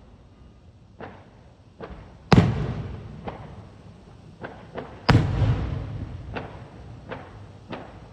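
Fireworks going off: a string of about ten sharp bangs at irregular intervals. The two loudest come about two and five seconds in, each followed by a long rolling echo.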